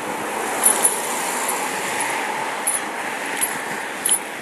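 Steady rushing of wind on the bicycle-mounted camera's microphone, with tyre noise on the road, while riding into a headwind. A few short, high clicks from the bike come through it.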